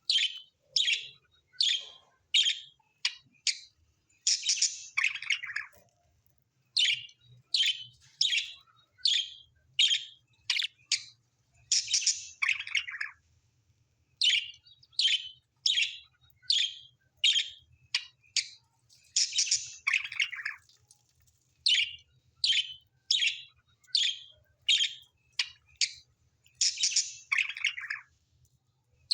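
A bird calling: short, sharp chirps about two a second, broken every seven or eight seconds by a longer call that falls in pitch.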